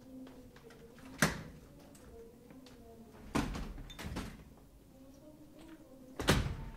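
A few hard knocks or bangs on stage, one about a second in, two close together around the middle, and a loud one near the end, over a faint steady hum.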